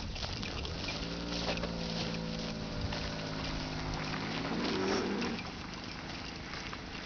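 A cow lowing: one long moo of about four seconds, starting about a second in and ending in a louder, breathier push. Footsteps crunch on a gravel track underneath.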